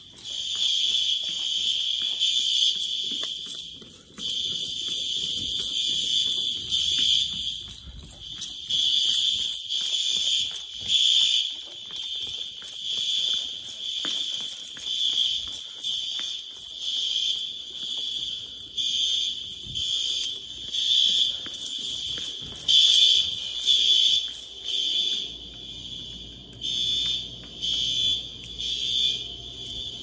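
Fire alarm horn strobes of a school's fire alarm system sounding in alarm. They give a high-pitched horn tone that is nearly unbroken for the first several seconds and then pulses roughly once a second.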